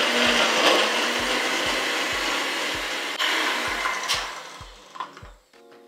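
Magic Bullet blender running, blending ice with protein powder and water into a thick mix; the motor cuts off a little after four seconds in.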